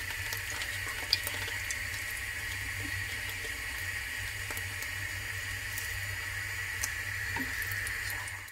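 String cheese dredged in flour, frying in hot oil in a pan: a steady sizzle with scattered small pops and crackles. The sound cuts off abruptly at the very end.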